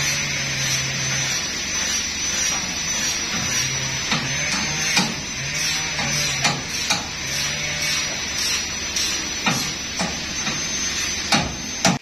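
A series of sharp knocks, about seven spread over the last eight seconds with two close together near the end, as men work chains and a metal bar on a truckload of huge rain-tree logs. Underneath runs a steady hiss with a thin high whine.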